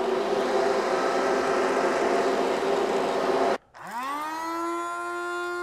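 An electric appliance runs with a rushing noise and a steady hum, then stops abruptly about three and a half seconds in. After a brief gap, a blade coffee grinder's motor starts and spins up to a steady, high whine.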